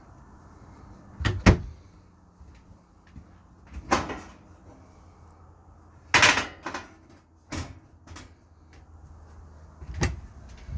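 Cabinet and door latches being opened and shut inside a travel trailer: five separate knocks and clatters, the loudest about six seconds in.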